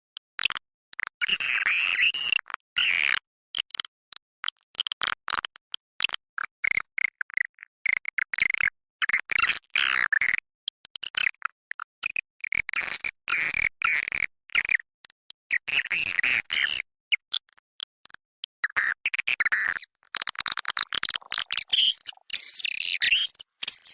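Recorded swiftlet calls: rapid high chattering chirps and trills in quick, broken bursts. This is a lure sound, played to attract swiftlets during the breeding season.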